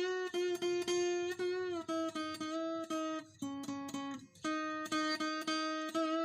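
Background music of plucked guitar-like notes in a steady rhythm.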